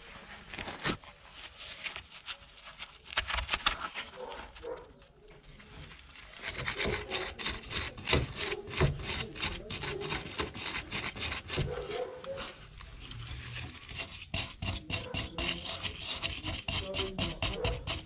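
A hand tool scraping and scrubbing the rusty rear drum brake assembly of a Ford Transit MK6 in quick back-and-forth strokes. A few scattered knocks and clicks come first, and the steady rapid scraping sets in about a third of the way through.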